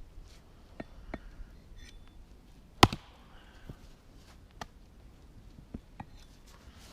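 A single hard blow of a Helko camp axe (about a 2.5 lb C45 steel head) into a dry ash log, almost three seconds in, with a few fainter knocks before and after it.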